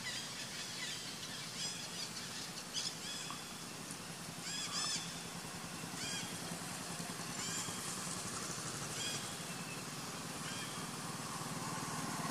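Short, high-pitched chirping calls every second or two, over the low steady hum of an engine that grows louder near the end.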